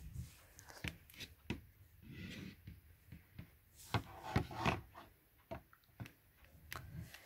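Rustling and scattered soft clicks and knocks of handling noise as a phone rubs close against a child's hair, jumper and bedding.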